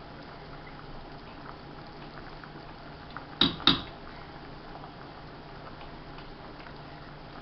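Large pot of pasta water at a rolling boil on the stove, a steady bubbling hiss. About three and a half seconds in, two short sharp sounds come close together as hot sauce is tasted from a spoon.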